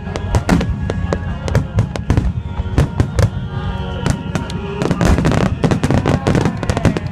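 Aerial fireworks bursting in quick succession, many sharp bangs and crackles, thickest about five seconds in, over loud music.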